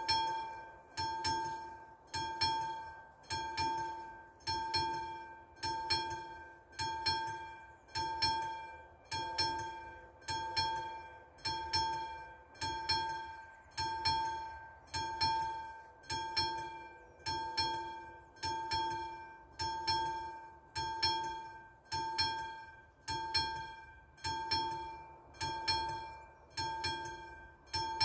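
Classic mechanical level-crossing bell striking steadily, about four strokes every three seconds, each stroke ringing out with a clear metallic tone that fades before the next. It is the crossing's warning that a train is approaching.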